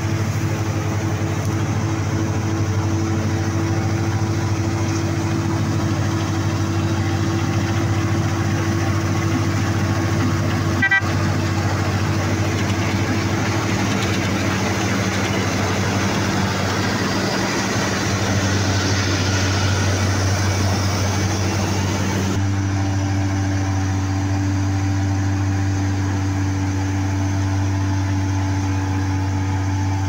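Laverda combine harvester running while harvesting wheat: a steady diesel engine drone with the hum and rattle of the threshing machinery. The sound changes abruptly about two-thirds of the way through.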